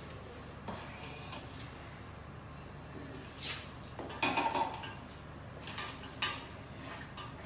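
Metal clinks and knocks as a laboratory sieve shaker is clamped shut: the lid and the clamping crossbar are fitted down the upright rods onto a stack of stainless steel sieves. A sharp, briefly ringing clink about a second in, a cluster of clatter around four seconds in, and a lone click near the end.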